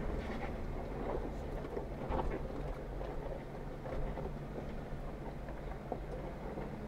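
Jeep Wrangler Rubicon engine running steadily at low revs as it crawls over a rocky trail, with scattered knocks and rattles from the tyres and body working over the rocks.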